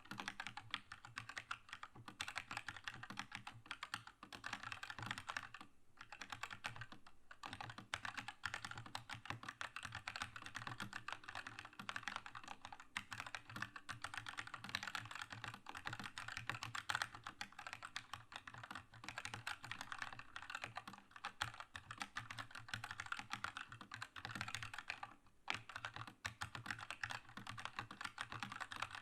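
Fast continuous typing on a Keychron K2 mechanical keyboard with red linear switches: a dense stream of key clacks, with brief pauses about six seconds in and near the end.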